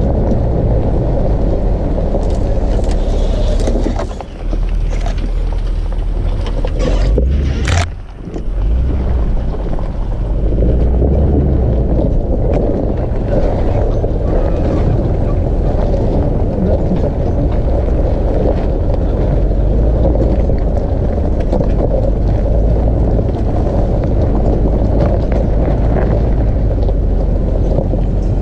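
An SUV driving slowly over a rough gravel and rock track, picked up by a camera mounted on its side: a loud, steady low rumble from the engine, tyres and shaking body. The rumble dips briefly about four and eight seconds in.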